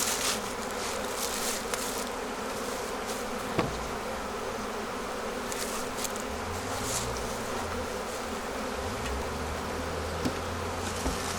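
Honeybees from an opened hive buzzing steadily in a dense, continuous hum, with a single sharp knock about three and a half seconds in.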